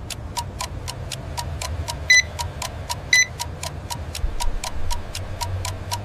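Cartoon sound effect of a digital thermometer counting up: rapid electronic ticking, about four ticks a second, as the temperature reading climbs. Two sharp high warning beeps come about a second apart near the middle, over a low steady drone.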